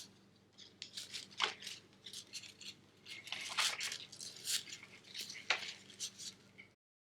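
Irregular small clicks, taps and light rustling from handling a plastic 1/6-scale action figure and its accessories.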